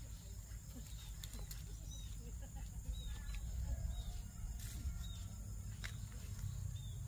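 A bird's short, high chirps, repeated about once a second, over a low rumble and a few scattered clicks.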